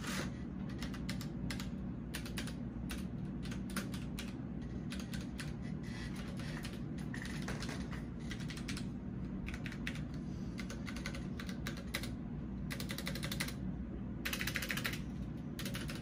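Fast, continuous typing on a Das Keyboard 4 Professional mechanical keyboard with Cherry MX Brown switches: a dense clatter of key clicks and keycaps bottoming out, set on a wooden table.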